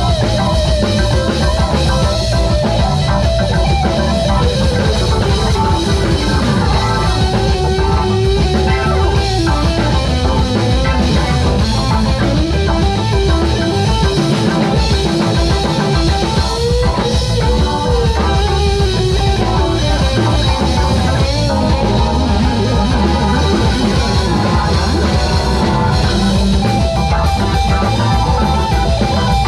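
Live rock band playing with electric guitar, bass guitar, drum kit and keyboard, a melody line sliding up and down over the steady beat.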